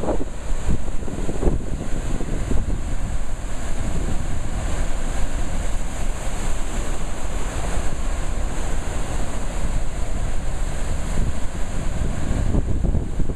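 Water rushing steadily from a dam's open spillway gates into churning white water below, with wind buffeting the microphone.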